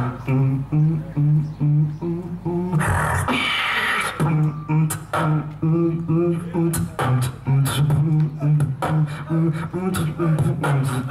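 Beatboxing through a handheld microphone and PA: a steady beat of sharp kick and snare clicks over a hummed bass line that steps between two low pitches, broken by a long hiss about three seconds in.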